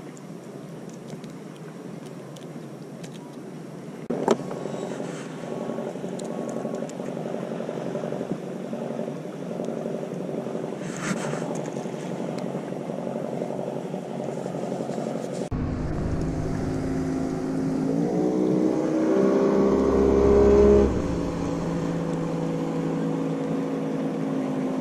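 An engine running, getting louder past the middle and rising in pitch for a few seconds before dropping back to a steady note. A single sharp knock about four seconds in.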